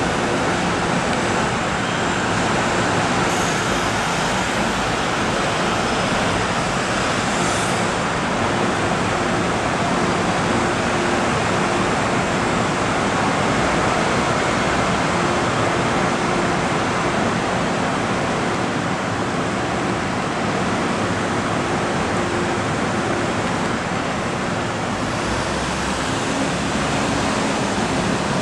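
Steady city road-traffic noise, with a faint steady hum that comes and goes.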